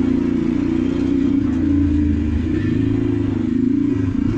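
Honda GX270 single-cylinder four-stroke go-kart engine running at a steady speed.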